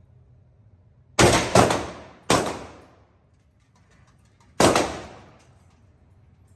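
Four gunshots from a 7.62×39 AK-pattern firearm, each followed by a short echoing decay. Two come in quick succession, a third follows just under a second later, and a fourth comes after a pause of about two seconds.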